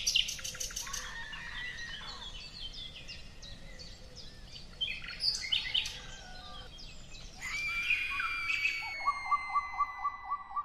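Birds chirping, joined about seven seconds in by a long, high whistle-like tone that slides slightly lower, and about nine seconds in by a rapid, even beeping at about four beats a second.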